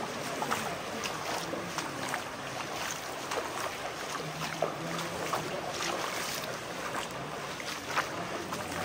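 Footsteps wading through a shallow stream: repeated short splashes over a steady rush of flowing water.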